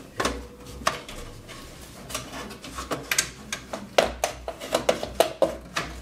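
Clicks and knocks as a graphics card is handled and seated in a PC case: hard plastic and metal parts tapping and clattering against each other. The knocks come faster and louder in the second half.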